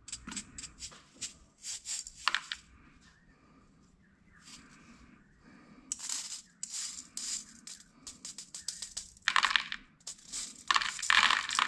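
Small steel ball bearings from a bicycle freewheel rattling and clicking in a stainless steel mesh sieve as a metal pick pushes them about. The clicks come in irregular clusters, louder about six seconds in and again near the end.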